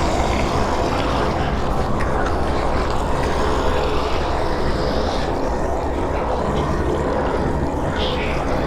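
A steady, dense rumbling drone from a demonic horror sound effect, heaviest in the low end, with faint sustained tones running through it.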